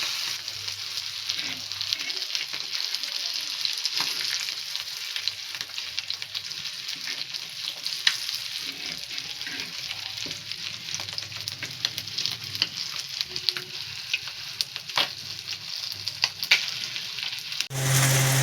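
Marinated fish pieces frying in hot oil in a pan: a steady sizzle with frequent sharp crackles and pops. A louder low hum comes in just before the end.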